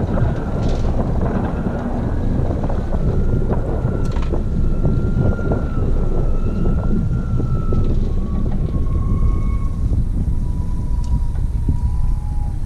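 Wind buffeting the microphone over a Suzuki 90 outboard motor running at low trolling speed, with a faint thin tone slowly falling in pitch.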